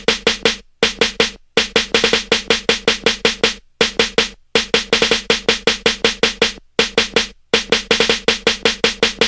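Music: a fast drum-machine pattern of rapid repeated hits, several a second, broken by short pauses.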